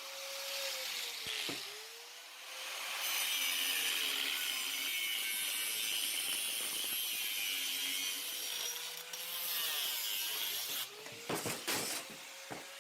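A power saw cutting through the steel frame tubing of a 1983 Sportster. The motor's pitch sags and recovers several times as the blade loads up in the cut, and a few sharp knocks come near the end.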